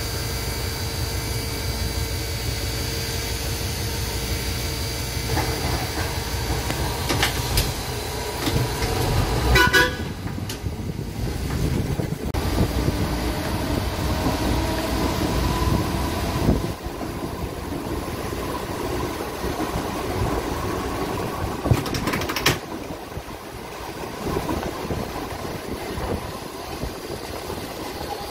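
TECO Line replica Birney streetcar running along its track, its motor and wheels making a steady noise. A short warning signal sounds about ten seconds in, and a few sharp clanks come early and again a little past twenty seconds.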